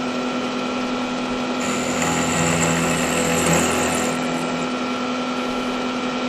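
Manual milling machine spindle running with a 3/8-inch end mill, the cutter plunged down into the metal plate and drawn back out. The pitch of the steady whine shifts while the cutter is in the cut, from about one and a half seconds in to about four and a half seconds in.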